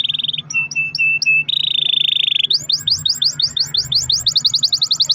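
Domestic canary singing a long rolling song: a fast trill, then four separate downward-sliding notes, then another fast roll about 1.5 seconds in. From about halfway it switches to a quick run of rising whistled notes, about eight a second, speeding up toward the end.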